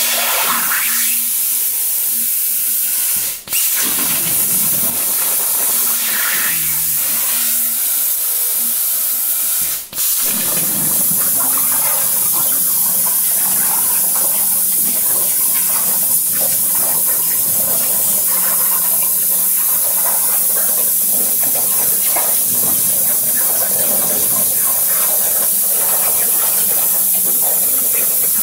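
CNC plasma cutter torch hissing steadily as it cuts 3/16-inch steel plate. Twice in the first ten seconds the hiss cuts out for a moment, then comes straight back.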